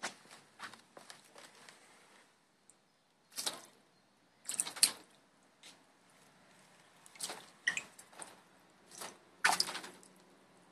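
A Bengal kitten's paws splashing and patting in shallow water on the floor of a plastic paddling pool: a string of short, irregular splashes, the loudest a little before the end.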